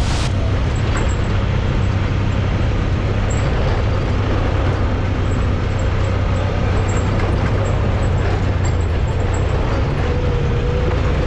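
Side-by-side UTV engine running at a steady speed while driving, with loud wind and ride noise over it. The low hum holds one pitch throughout.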